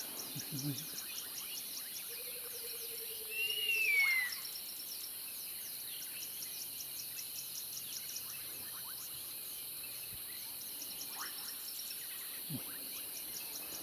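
Night insect chorus of crickets: a steady high trill with rapid, regular chirping. About two seconds in, an animal gives a held note for about two seconds, then a short falling whistle, the loudest sound here.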